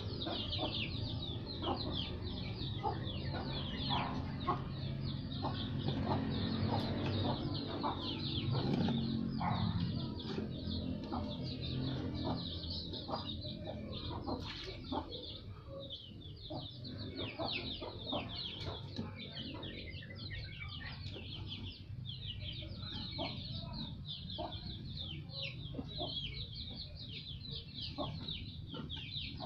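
Many birds chirping without a break in quick, high, falling peeps, with scattered light splashes of water as a small child plays in a basin.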